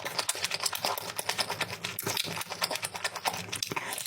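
Close-miked eating: chewing with a fast, dense run of wet clicking mouth noises.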